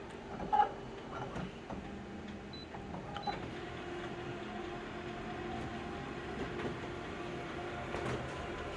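Steady mechanical hum with several held tones, with a couple of faint clicks in the first second or so.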